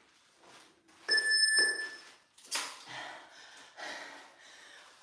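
A single electronic beep, one steady high tone lasting just under a second, about a second in, typical of a workout interval timer. It is followed by a few soft breaths and the handling of a plastic water bottle being set down.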